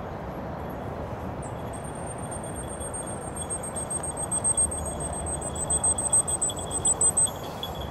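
Steady outdoor background noise, with a thin high-pitched whistle-like tone held for about five seconds from about two seconds in.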